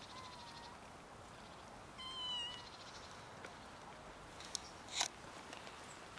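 A cat meowing twice: a faint short meow at the start, then a louder, high meow about two seconds in. Near the end come two sharp clicks, the second one the loudest sound.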